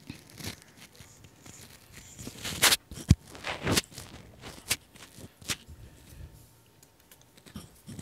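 Scattered short clicks and brief rustles at a computer desk, with mouse clicks as Word is launched. The loudest rustles come about two and a half and three and a half seconds in, with a short low thud between them.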